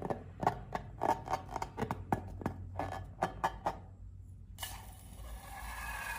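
Balloons and slime being handled: a quick run of about a dozen sharp clicks over three and a half seconds. Near the end it changes suddenly to a steady hiss with squeaky tones that slide up and down.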